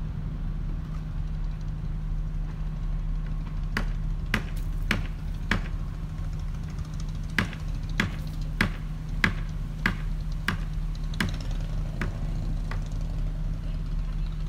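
Steady low hum of a berthed ferry's running machinery. About a dozen sharp knocks come through it, roughly one every half-second, in two runs with a short pause between them, from about four seconds in until near the end.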